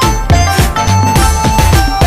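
Background music with a fast, steady beat and deep bass.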